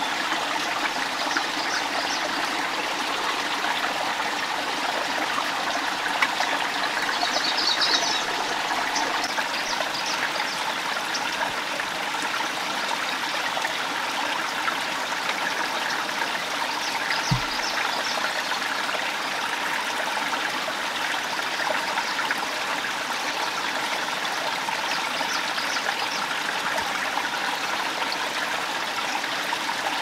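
Steady rush and trickle of a forest stream running over rocks, with a single brief low knock a little past the middle.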